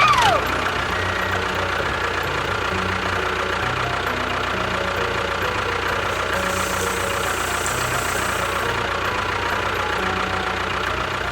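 An engine running steadily at an even pace. A short falling whistle-like glide sounds right at the start.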